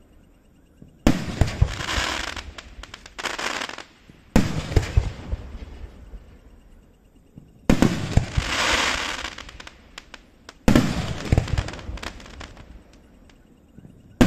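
3-inch aerial display shells bursting: four sharp bangs about three seconds apart, each followed by a couple of seconds of crackling and echo that fades away, with another bang starting right at the end.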